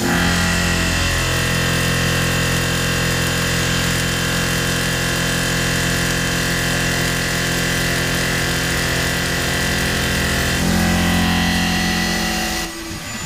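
Tormach PCNC 1100 CNC mill spinning a Tormach Superfly fly cutter at 2,500 RPM, face-milling a 7-inch aluminum disc: a steady machining drone with a pitched whine. Its low tone shifts about ten seconds in and dips briefly near the end.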